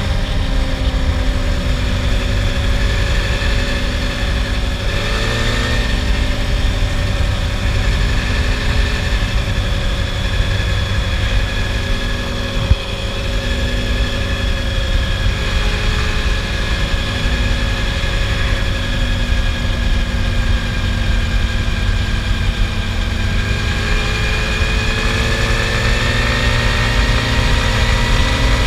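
Quad (ATV) engine running at a fairly steady speed over a heavy low rumble, its pitch dipping and rising gently a few times. A single short knock comes near the middle.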